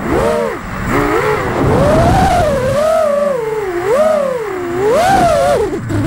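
5-inch FPV quadcopter's motors and three-blade props whining, the pitch sweeping up and down about once a second as the throttle is punched and chopped through flips and dives, over a low rush of wind.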